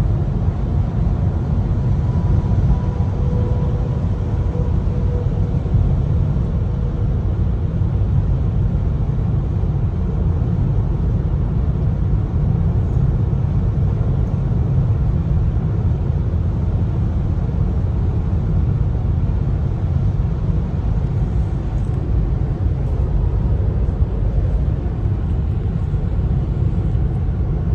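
Steady road and tyre rumble inside the cabin of a 2022 Tesla Model 3 cruising at highway speed.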